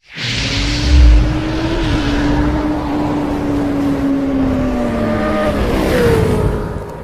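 Race-engine sound effect for a channel intro: a rush of hiss at the start, a deep boom about a second in, then a held engine note that sinks in pitch and fades out near the end.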